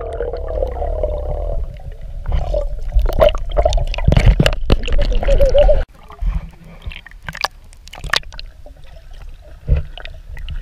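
Water and bubbles heard underwater through a camera's waterproof housing: a low rumble with gurgling, sharp clicks and a wavering tone, cutting off suddenly about six seconds in as the camera comes out of the water. After that come quieter splashes and water lapping at the surface.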